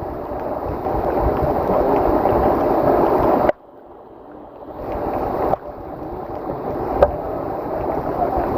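Heavy rain pouring down steadily. The sound drops away sharply about three and a half seconds in and builds back over the next two seconds, with one sharp click near the end.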